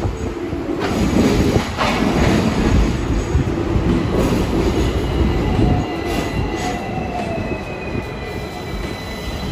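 Hong Kong double-deck electric tram running along its street track, heard from on board: a steady rumble of wheels on rail. Two short knocks come about one and two seconds in, and a faint high wheel squeal slowly falls in pitch in the second half.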